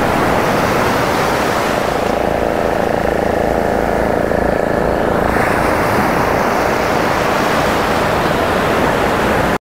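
Ocean surf breaking and washing up the sandy shore, a loud, steady rush of water.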